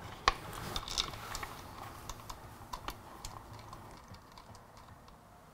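Light irregular clicks and taps of metal bolts being handled and threaded in by hand, finger tight, several a second at first and thinning out towards the end.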